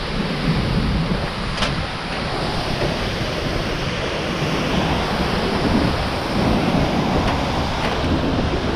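Steady rush of a large waterfall's falling water, with wind buffeting the microphone.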